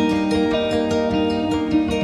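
Background music with plucked strings, guitar- or harp-like, playing sustained melodic notes.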